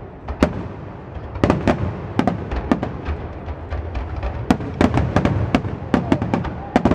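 Aerial firework shells bursting in a quick series of sharp bangs over a low rumble, coming faster and closer together in the second half.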